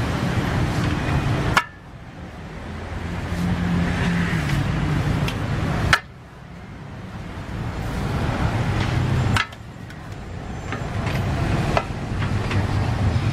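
Two metal spatulas scraping and clinking against a large wok as pad thai noodles and bean sprouts are stir-fried, over a steady frying hiss and low rumble. The sound drops abruptly three times and builds back up.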